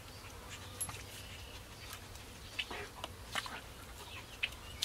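Bluetick coonhound sniffing along the ground in grass and leaf litter: short, quick sniffs at irregular intervals.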